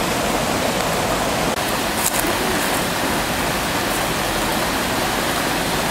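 Rushing water, loud and steady, as of a mountain stream or waterfall close by. A couple of faint clicks about two seconds in.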